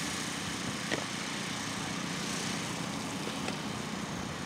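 Steady outdoor background noise, an even hiss with no clear pitch, with a couple of faint clicks.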